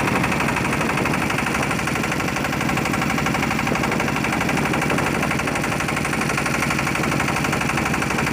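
A fishing boat's inboard engine running steadily close by, with a fast, even knocking beat.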